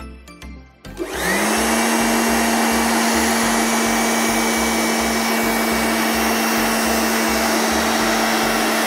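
Handheld electric air blower switched on about a second in, its motor whining up to speed and then running steadily with a loud rush of air, blowing onto a charcoal grill to fan the coals.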